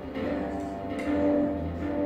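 Electronic keyboard playing held chords, with new notes struck about every half second to a second.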